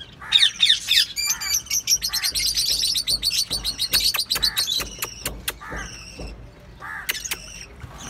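Rose-ringed (ringneck) parakeets screeching: a burst of harsh calls, then a fast chattering run of high calls with a few sharp clicks, dying down about five seconds in, with a couple of calls near the end. The adult pair is being disturbed in their nest pot.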